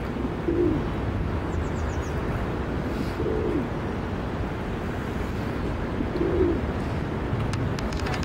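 Male feral rock pigeon cooing in courtship, three low coos about three seconds apart, over a steady low background rumble.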